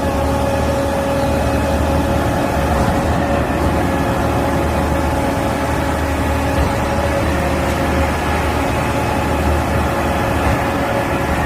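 Heavy diesel engine of a concrete pump truck running steadily at constant speed, a low engine hum with a steady whine above it.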